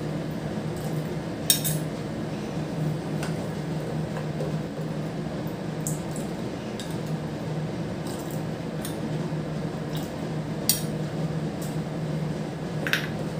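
A metal spoon clinking a few times against a glass bowl and a steel pot as custard-powder slurry is spooned into heating milk and stirred, over a steady low hum.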